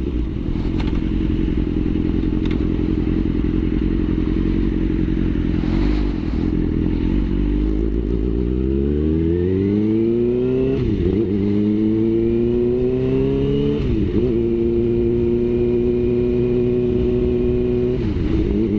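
Suzuki GSX-R motorcycle engine heard from the rider's seat, running steadily at first, then accelerating with its pitch rising. It shifts up with quick drops in pitch a little past halfway and again later, then holds a steady note.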